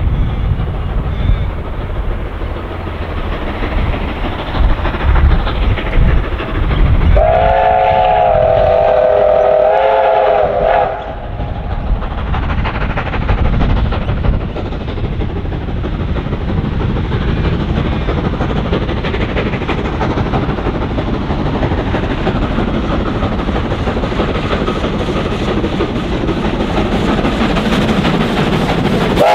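Steam train hauled by Victorian Railways locomotives Y112 and K153 running towards the listener, its exhaust rumbling throughout. About seven seconds in a steam whistle sounds one chord of several notes for about four seconds. The exhaust and the wheel clatter grow louder near the end as the leading engine, Y112, draws close.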